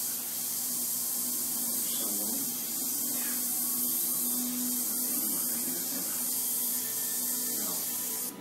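Airbrush hissing steadily as compressed air sprays paint.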